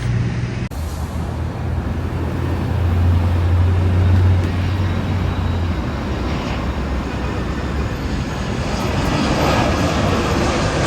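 Steady low rumble of road traffic mixed with jet aircraft noise, swelling about three to four seconds in and again near the end.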